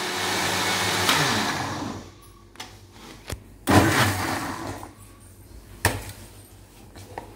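A Panasonic mixer grinder's motor winding down after switch-off, its whir falling in pitch and fading out over about two seconds. Then come a few knocks and a sharp clatter from the steel grinding jar being handled.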